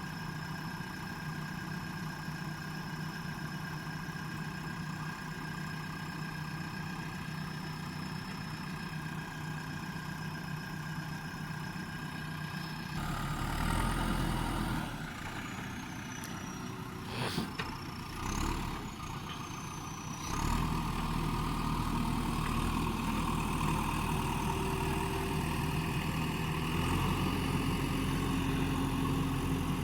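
JCB backhoe loader's diesel engine idling steadily, then working harder a little under halfway through, with a sharp knock and brief high squealing glides. For the last third it runs louder and steady.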